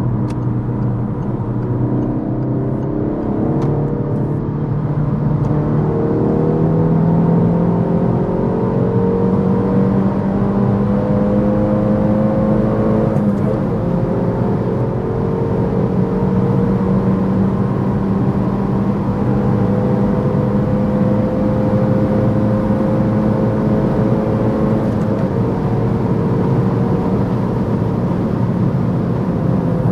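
Peugeot 308 GTi's 1.6-litre turbocharged four-cylinder pulling hard in the high gears at autobahn speed. The engine note climbs slowly, dips sharply at an upshift about 13 seconds in and again near 25 seconds, then keeps climbing over steady road and wind noise.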